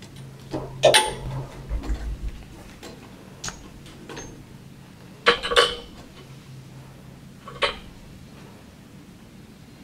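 ECG suction-cup chest electrodes and their metal fittings being handled and knocked against a tray: a few sharp clinks and clicks, about a second in, a cluster around five and a half seconds, and one near eight seconds, over a faint steady low hum.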